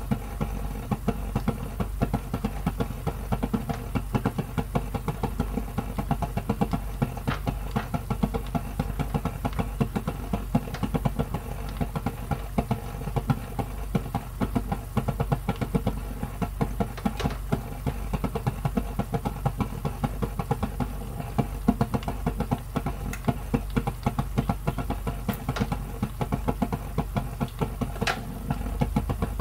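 Thick sweet and sour sauce with pork simmering in a frying pan, bubbling with rapid, irregular pops over a steady low hum.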